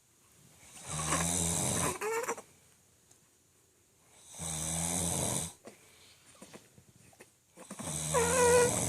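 A man snoring loudly: three long snores about three and a half seconds apart, with quiet breaths between. The first and last each end in an upward glide in pitch, and the last is the loudest.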